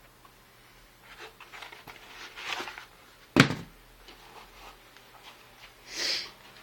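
Packaging being handled during an unboxing: paper and cardboard rustling, one sharp knock about halfway through, and a short swish near the end.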